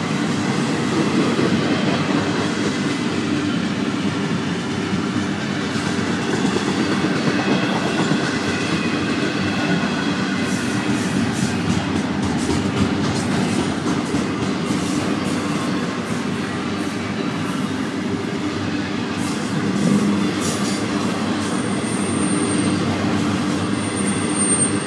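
Double-stack container well cars of a freight train rolling past at steady speed, their steel wheels clattering and rumbling on the rails. A thin high squeal comes in twice near the end.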